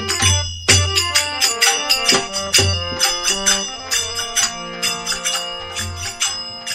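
Instrumental break of a Rajasthani devotional bhajan: a melody over a steady drum beat with small hand percussion.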